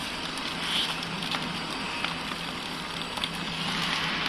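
Horizontal pillow packing machine running while it wraps instant-noodle blocks in film: a steady motor hum with a few light clicks from the mechanism.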